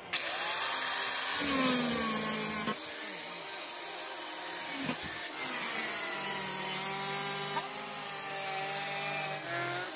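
Electric cutter machine with a cutting disc biting into a mobile phone. The motor's whine starts abruptly and its pitch sags and recovers as the disc is loaded. It gets somewhat quieter about three seconds in and keeps cutting.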